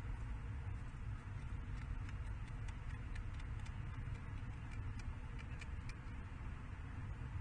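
Female peregrine falcon picking at the gravel of her nest box with her beak, taking up small stones to swallow as grit: a scatter of small, irregular clicks of pebbles for a few seconds in the middle. Under it runs a steady low rumble.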